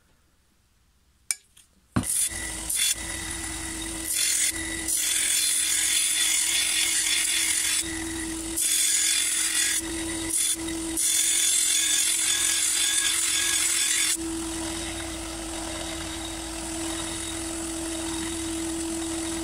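Sealey SM760 250 W bench belt and disc sander starting up about two seconds in, with a steel lawn mower blade pressed against the running sanding belt in several passes, making a rough grinding rasp over the motor's steady hum. Past the middle the grinding stops and the belt runs free with a steady hum.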